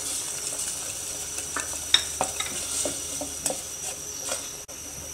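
Spoon stirring tomato-paste sauce in a metal pot, with irregular clicks and scrapes against the pot; the sharpest knock comes about two seconds in. Under it is a steady sizzle of the sauce cooking in hot oil.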